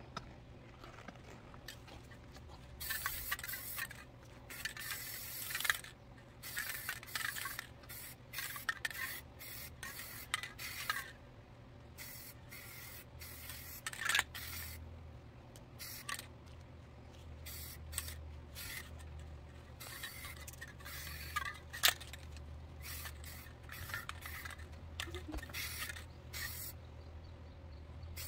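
Rust-Oleum 2X Ultra Cover aerosol spray paint can spraying in many short hissing bursts with brief pauses between them, and an occasional sharp click.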